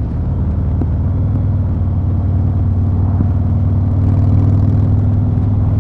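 Harley-Davidson Fat Boy 114's Milwaukee-Eight 114 V-twin running at a steady cruise through Vance & Hines Eliminator 300 pipes, from the rider's seat, growing slightly louder over the first few seconds.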